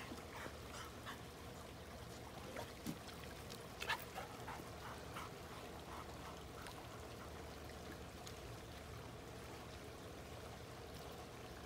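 Faint sounds of a German shorthaired pointer on a pool deck: a few soft clicks and a brief whimper between about three and four seconds in, over a low steady trickle of pool water.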